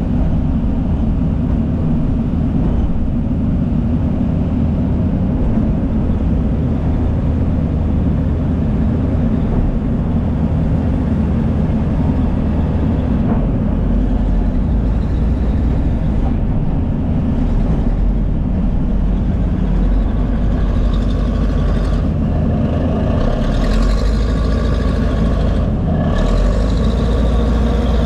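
Heavy diesel earthmoving machinery running steadily under load. Higher whining tones join in during the last several seconds.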